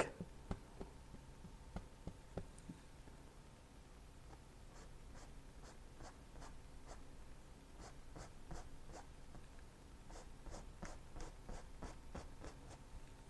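Faint, scratchy strokes of a paintbrush working thick oil paint: a few at first, then a fairly steady run of about two or three strokes a second from about five seconds in.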